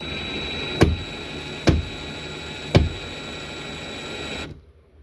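Power drill-driver running steadily for about four and a half seconds, driving the kayak handle's bolts into the wooden backing, with three sharp knocks along the way, then cutting off.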